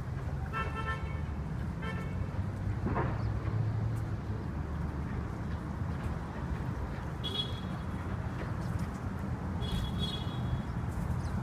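Steady city traffic hum with several short car-horn toots, a couple near the start and higher-pitched ones later on.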